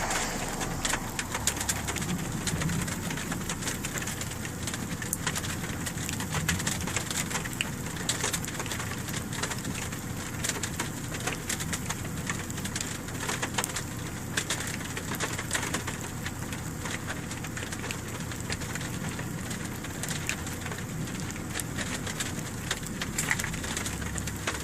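Rain pattering, many separate drops ticking at an uneven rate, over a steady low hum.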